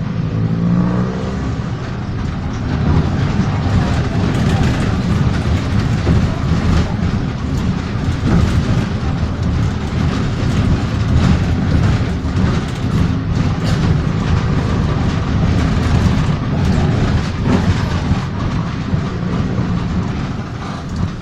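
Mercedes-Benz OF-1418 bus's six-cylinder diesel engine and exhaust under way: the engine note rises briefly at the start as it accelerates, then settles into a steady heavy rumble with rattling and clatter from the moving bus.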